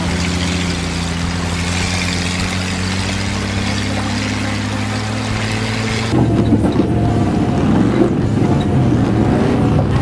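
A vehicle engine running steadily, with water rushing and splashing over it, as an SUV drives through a shallow stream. About six seconds in, the sound cuts abruptly to a louder, rougher engine noise that wavers in pitch.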